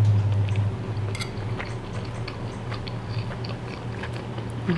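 Close-miked chewing of a mouthful of salmon and rice: scattered soft wet mouth clicks and smacks. A steady low hum runs underneath and is strongest in the first second.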